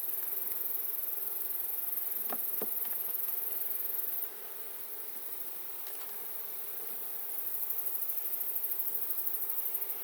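Honey bees buzzing steadily around an opened hive while its frames are inspected, with two faint knocks a little over two seconds in.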